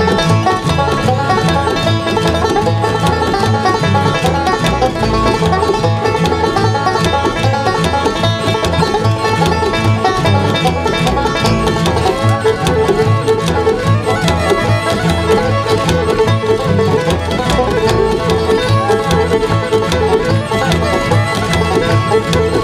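Live bluegrass band playing with a steady beat, banjo and fiddle over guitar and upright bass, with the rapid taps of clogging shoes on the stage running through the music.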